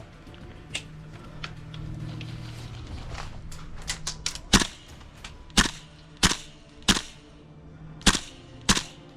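Tokyo Marui MK18 gas blowback airsoft rifle firing single shots, each a sharp crack, spaced about half a second to a second apart and loudest in the second half, with fainter shots from further off in between.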